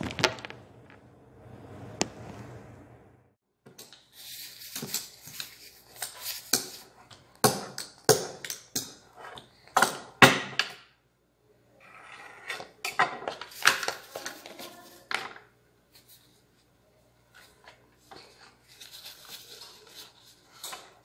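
Kitchen handling noise from gloved hands working at a counter: irregular bursts of plastic crinkling and rustling with sharp taps and knocks, over a faint steady low hum.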